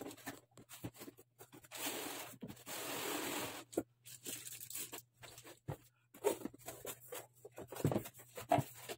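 A cardboard box lid scraping as it is slid off, with two scraping stretches about two and three seconds in, then light clicks and rustles as the box and its bagged plastic kit parts are handled.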